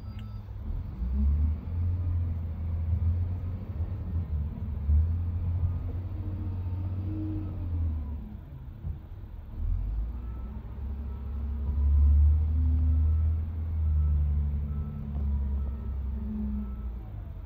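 Diesel engine of an SDLG wheel loader rumbling and revving up and down as the loader pushes into a sand pile and lifts its bucket; it is loudest about two-thirds of the way through. Faint, evenly spaced beeps sound in the second half.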